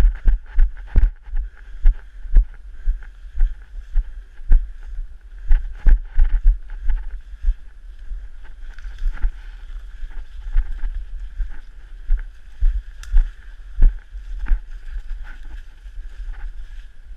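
Muffled, irregular thuds of footsteps and knocks on a body-worn action camera as the wearer moves quickly over rough ground, with sharp clicks among them and a faint steady high tone behind. The thuds come thick and fast at first and grow sparser later.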